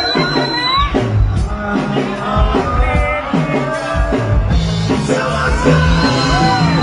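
A live band playing rock music, loud and steady, with a high held note near the start and again near the end.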